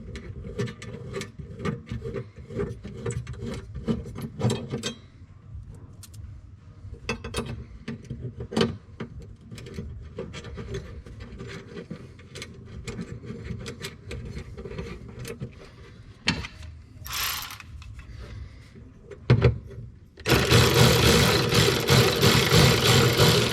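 Irregular clicks, scrapes and rattles of hand tools and hardware as a ground wire is fastened to the car's body. Near the end, a loud, even rushing noise lasts a few seconds.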